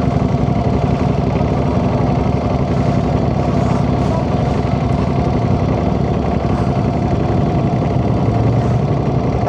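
Ducati Panigale V4 motorcycle's V4 engine running steadily at a near-idle, with no revving.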